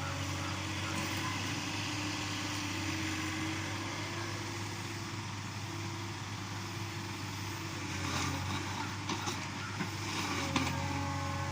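Backhoe loader engine running steadily, with a few short knocks about eight to ten seconds in.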